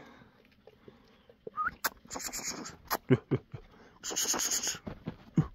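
Kangal shepherd dog moving about close by: breathy sniffing bursts, a short rising whine, and a few soft thuds.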